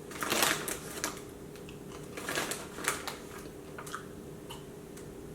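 Close-up chewing of crunchy habanero cheese popcorn: uneven crunches, loudest in the first three seconds, then a few faint clicks.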